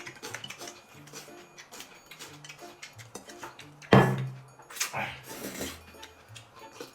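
Soft background music with a stepping bass line, over scattered clinks of dishes and cutlery from people eating at a table. A loud thump about four seconds in, then a short noisy rustle.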